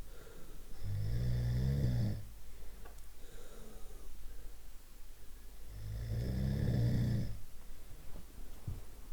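A person snoring: two long, low snores about five seconds apart, each lasting about a second and a half, with quieter breathing in between.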